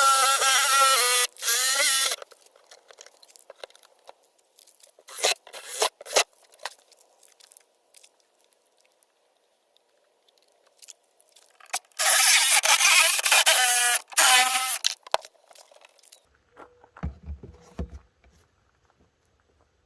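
Power drill cutting through the plastic wall of a cooler, in two bursts of a few seconds each with a high motor whine over a scraping, tearing noise, and light knocks and handling of the work between them.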